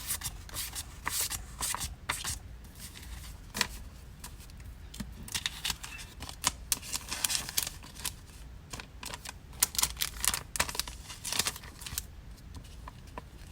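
Hands handling paper and plastic packing materials while packing an order: irregular rustling and crinkling with short clicks and taps.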